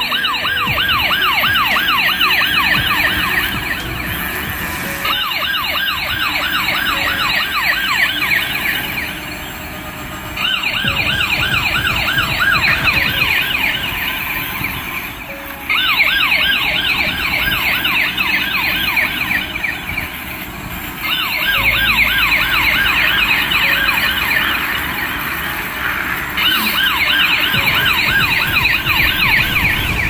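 Toy police car's built-in electronic siren, switched on: a fast yelping wail of many rising-and-falling sweeps a second, coming in bursts of about five seconds that stop and restart.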